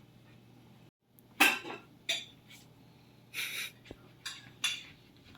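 Dishes and cutlery clinking and scraping at a meal, in a handful of short knocks. The loudest comes about a second and a half in.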